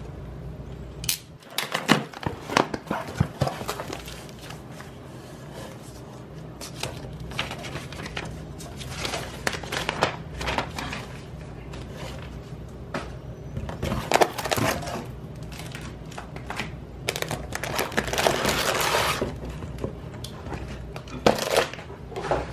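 Plastic packaging and wrappers crinkling and rustling as items are unwrapped by hand, with scattered clicks and taps. The rustling comes in several bursts, the longest about three-quarters of the way through.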